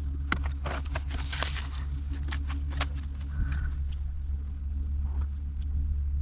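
Car engine idling with a steady low hum, with a quick run of clicks and rustling over the first three seconds and a brief high tone a little after.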